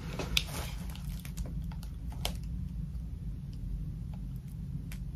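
A few scattered small clicks and taps from handling and applying a lip liner pencil, the sharpest about half a second in and another about two seconds in, over a steady low hum.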